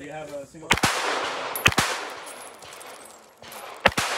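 Pistol shots from an Alien Retro open-class competition pistol: three quick pairs of shots, the two in each pair about a tenth of a second apart, spread over about three seconds, each pair followed by a short echo.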